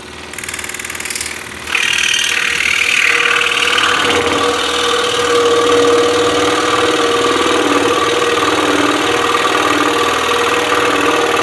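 Axminster Trade scroll saw running, its fine blade sawing through a deep block of pine; the sawing grows louder about two seconds in and then holds steady. The thick workpiece gives the blade more resistance than flatter, thinner stock.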